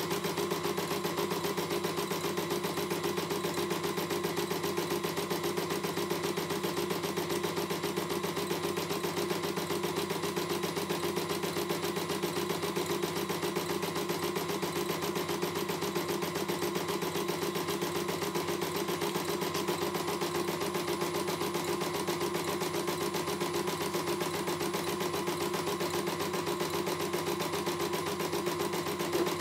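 CNY E900 computerized embroidery machine stitching steadily: a rapid, even needle rhythm over a constant motor hum as the hoop moves the design under the needle during a test run.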